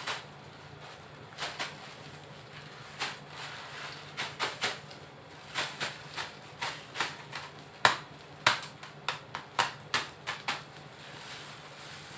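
Peanuts and garlic being stirred in a metal wok: the nuts rattle and clack against the pan in irregular clusters of sharp clicks, with short pauses between strokes.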